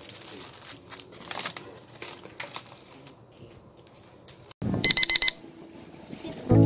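Soft rustling and small handling clicks, then, about five seconds in, four quick, loud, high-pitched electronic beeps in a row, like a digital alarm or timer beeper.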